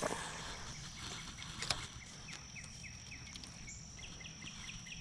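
Faint outdoor wildlife sound: a steady high-pitched insect drone, and a bird calling a quick run of short falling notes, several a second, from a bit past two seconds in. A single sharp click about a second and a half in.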